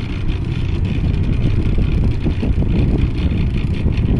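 Small fishing boat's engine running steadily, a low rumble, with wind on the microphone.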